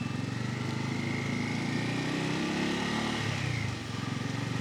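Bajaj Pulsar N250's single-cylinder engine running steadily on the move, its note easing briefly a little past three seconds in.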